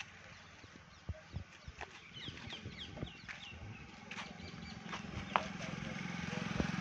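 Birds chirping in short, quick falling calls, among scattered light clicks and knocks. A low steady hum builds up from about halfway through.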